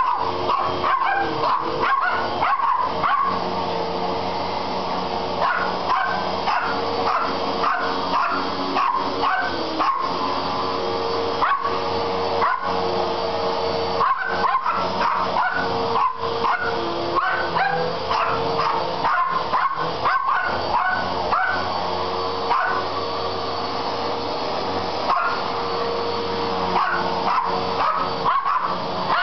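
Upright vacuum cleaner running with a steady motor whine while poodles bark and yip at it over and over in short, sharp bursts.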